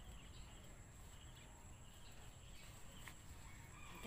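Near silence: faint outdoor background with a low steady rumble and a few faint chirps.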